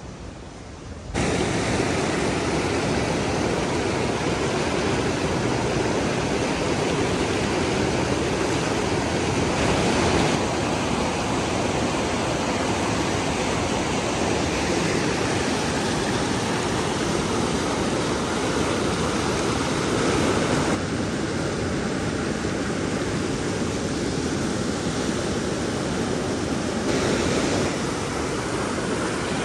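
Fast mountain river rushing as white water over boulders: a loud, steady rush that starts about a second in and shifts slightly in level a few times.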